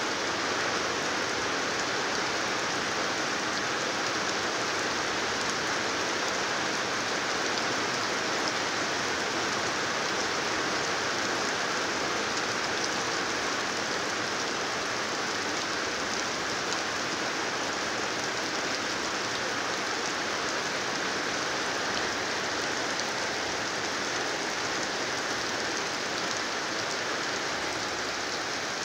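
Heavy rain falling steadily, an even hiss of drops on the ground.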